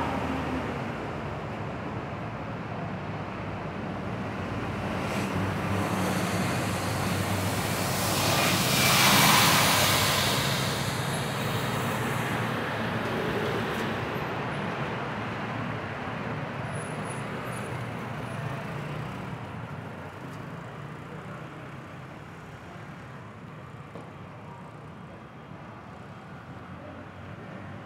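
City street traffic: cars and motorbikes going by, with one vehicle passing close and loud about nine seconds in, after which the traffic noise slowly fades.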